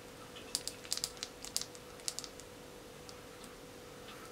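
Light clicking and tapping of a black pepper shaker shaken over a small plastic measuring spoon: a quick, irregular run of about a dozen clicks starting about half a second in and dying away after two seconds, with a few faint ticks later.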